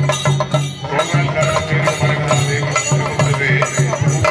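Festival drummers beating slung drums in a steady, driving rhythm, with a metallic jingle over the beat.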